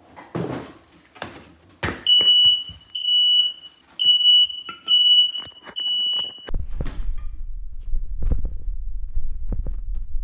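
Electronic beeper giving five steady, high-pitched beeps about a second apart, after a few scattered clicks. It then stops and a low rumble of handling noise follows.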